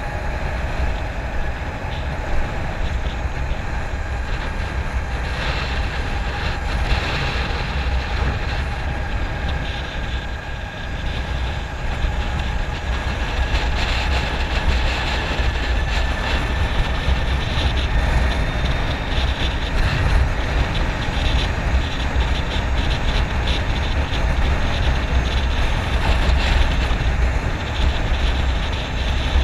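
Wind rushing over the microphone while riding a LiveWire electric motorcycle, with the faint whine of its electric motor slowly drifting in pitch as the speed changes.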